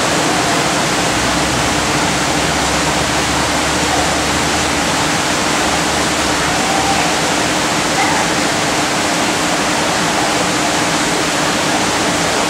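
Steady rushing noise, like running water, with a faint low hum under it.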